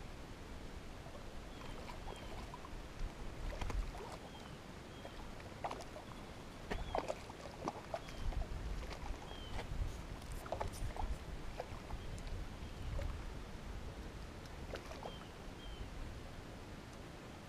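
Outdoor ambience with gusts of wind rumbling on the microphone, scattered small clicks and knocks from handling the fishing rod and line, and faint short high chirps recurring every second or two.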